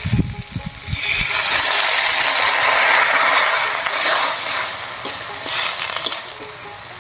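Water going into a hot wok of fried jute leaves and vegetables, hissing and sizzling loudly for a few seconds and then dying down. A wooden spatula stirs and scrapes the pan near the end.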